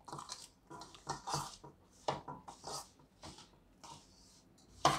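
Spoon stirring raw mango pieces through coarse, gritty pickle masala in a stainless steel bowl: irregular scraping and rustling strokes, with a louder scrape near the end.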